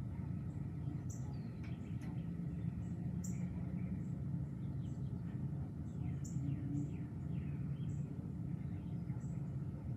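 Birds chirping and calling in short, repeated notes over a steady low background rumble.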